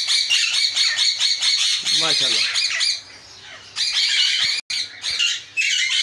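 A large flock of ring-necked and Alexandrine parakeets screeching in rapid, overlapping harsh calls, a loud racket; the calling eases off briefly about halfway through, then starts up again.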